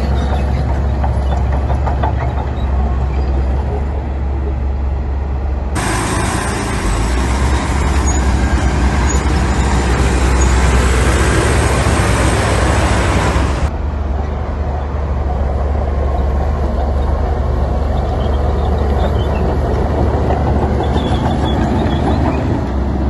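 Heavy diesel earthmoving machinery running steadily with a deep low rumble. From about six seconds in, a louder rushing hiss covers it for about eight seconds, then the rumble carries on alone.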